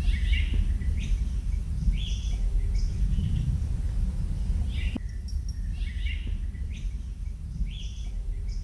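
Songbirds chirping in short repeated phrases every second or two, over a steady low rumble.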